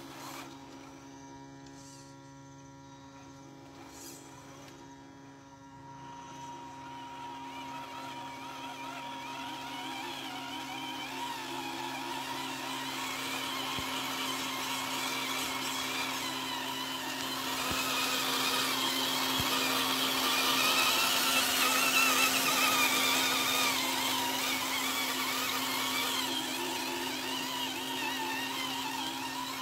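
Radio-controlled model truck's small drive motor and gears whining as it crawls over a dirt track, the pitch wavering with the load. The sound grows louder as the truck comes closer, loudest a little past two-thirds of the way through.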